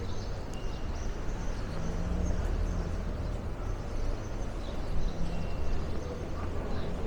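Outdoor street ambience with a steady low engine rumble from nearby traffic, with a few faint high chirps over it.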